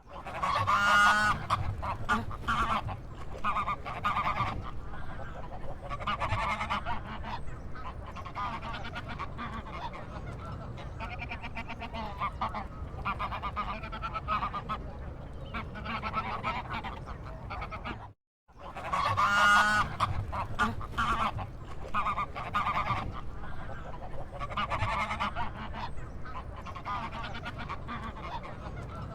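Waterfowl calling again and again: loud nasal honking calls at first, then quieter scattered calls over steady background noise. The audio cuts out briefly about 18 seconds in, and the same run of calls starts over.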